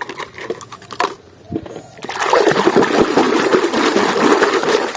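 Water running and splashing over a muddy toy cement mixer truck as it is rinsed clean, starting about two seconds in after a few light handling knocks.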